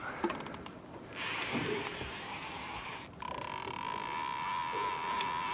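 Spinning reel's drag clicking rapidly as a hooked fish pulls line against it, followed by a steady mechanical whir from the reel.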